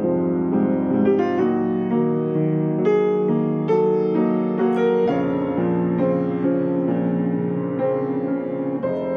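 Piano played with both hands: an unbroken flow of notes and chords over held low notes, with fresh, stronger chords struck several times.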